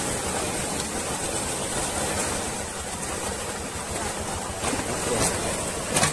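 Many fish thrashing and splashing at the surface inside a drawn-in fishing net, a continuous churning splash with a few sharper slaps in the last couple of seconds.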